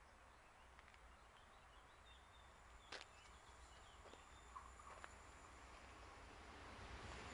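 Near silence, with a few faint bird chirps and soft clicks. Near the end the faint rushing of an approaching train begins to grow.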